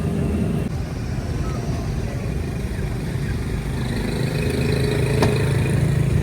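Street traffic: motor vehicles running and passing, with an engine growing louder in the last couple of seconds and a single sharp click about five seconds in.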